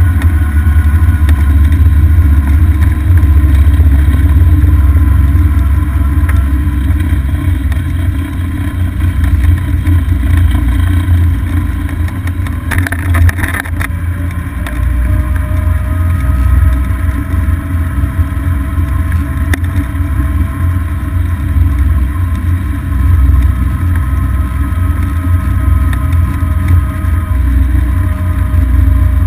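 Golf cart driving along a paved road, heard from a camera mounted on the cart: a heavy, steady low rumble of wind on the microphone and the moving cart, with a faint steady whine from the cart's drive. A brief burst of noise comes about thirteen seconds in.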